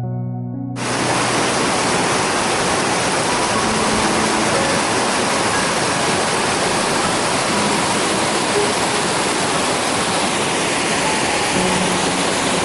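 Soft instrumental music, then about a second in the steady rush of a waterfall starts suddenly and fills the rest, with the music faint beneath it.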